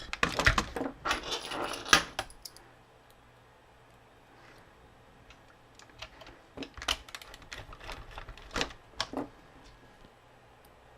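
Light clicks and small metallic rattles from screws and a plastic action-figure casing being handled as the screws go back in. There is a cluster of clicks in the first two seconds and more scattered clicks between about six and nine seconds.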